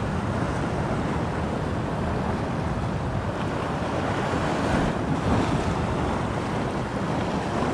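Sea waves washing and surging, with wind buffeting the microphone; the surge swells a little louder about five seconds in.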